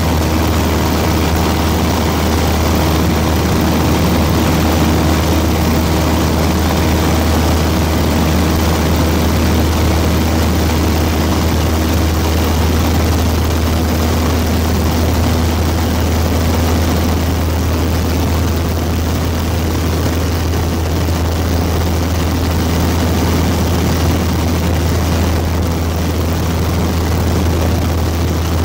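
Steady drone of an aircraft in flight heard from on board: a strong constant low hum with a few steady tones over an even rushing noise.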